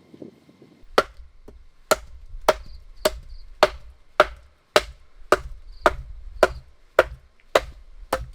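Steady series of sharp chopping strikes, about two a second and some thirteen in all, starting about a second in.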